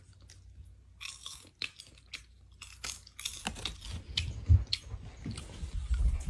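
Crunchy chewing close to the microphone: a person biting and chewing crunchy food in irregular crunches, with a few low thumps in the second half.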